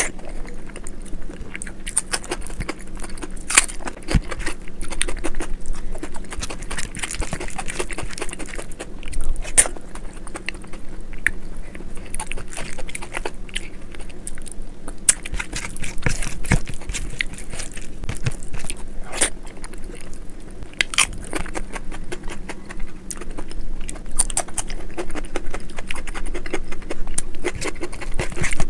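Eating dal khichdi by hand: chewing with wet mouth sounds and a steady scatter of small sharp clicks and smacks, mixed with fingers squishing the soft rice and lentils on a steel plate.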